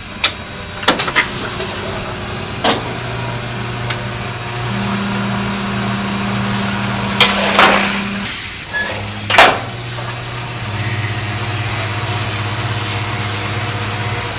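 Maytag top-load washer running with a steady motor hum, now working with its new lid switch fitted. A few sharp knocks and clunks come through it, the loudest about nine seconds in, and the hum changes pitch around eight and eleven seconds in.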